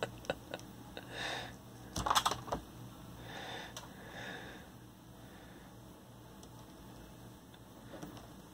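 Faint handling of small 3D-printed flexible-filament test cubes on a desk: a few light taps and clicks in the first few seconds, the loudest about two seconds in. A couple of soft breaths are heard, and then only quiet room tone remains.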